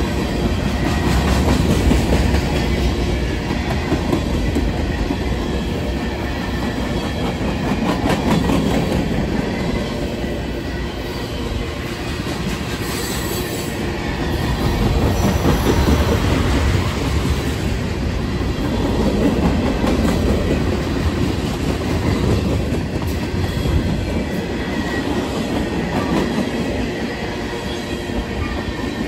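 Freight train cars rolling past on the track: a steady rail rumble that swells and eases every few seconds.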